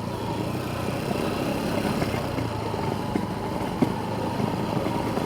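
A motor vehicle's engine running steadily with a low hum, with one brief click a little under four seconds in.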